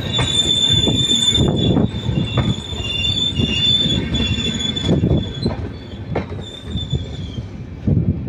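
Passenger train coaches rolling past close by: a loud rumble with rhythmic wheel clatter over the rail joints and a steady high wheel squeal. The sound fades in the last couple of seconds as the final coach passes and draws away.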